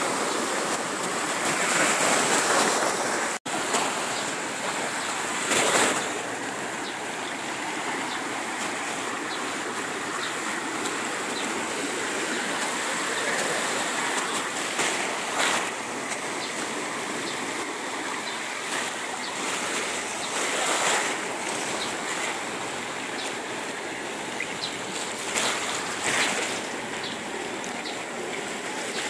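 Small sea waves washing up onto a dark pebble beach: a steady hiss of surf that swells louder now and then as a wave breaks, cutting out for an instant a few seconds in.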